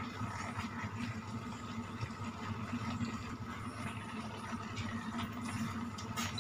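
Steady hum of a kitchen fan, with soft scrapes and clicks of a plastic spatula stirring taro leaves in coconut milk in a wok, and a sharper click near the end.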